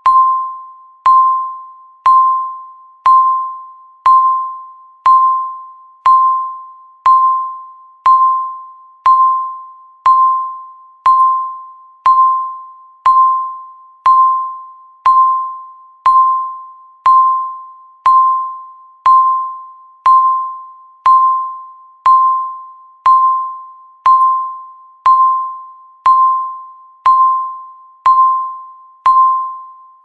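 Countdown timer beeping once a second: a short single-pitch beep that starts sharply and fades quickly, repeating steadily and evenly.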